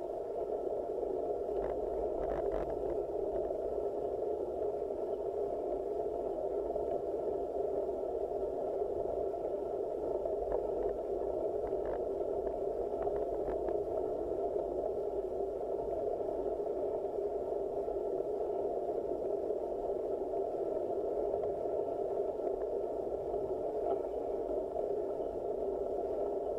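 Steady, muffled rolling noise of a road bicycle climbing slowly, as picked up by a camera mounted on the handlebar, with a faint thin tone above it. A few faint clicks come about two seconds in and again around the middle.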